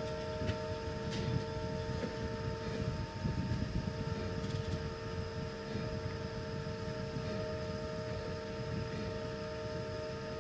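Steady low rumble with a faint, even hum of several steady tones over it.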